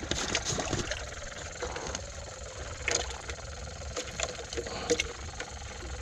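Water sloshing and hard plastic knocking as a hand rummages in a live-bait container for a live shrimp, with a few sharp clicks, over the steady hum and bubbling of a small battery air pump aerating the bait water.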